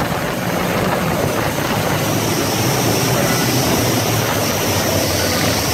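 Three outboard motors running steadily at speed on a planing sportfish boat, a constant engine drone under a rushing noise.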